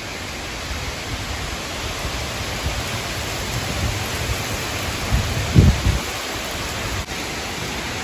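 Heavy wind-driven rain pouring down steadily, with gusts of wind rumbling low on the microphone, the strongest about five and a half seconds in.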